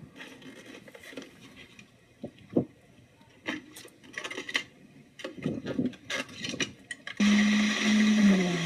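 Scattered short scrapes and knocks. Then, about seven seconds in, a loud steady motor hum starts suddenly and drops slightly in pitch near the end.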